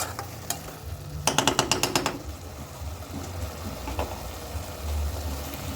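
A spoon stirring a pot of beef, tomatoes and potatoes, clinking and scraping against the pot. There are a few single clicks, then a quick run of about eight clicks a little over a second in.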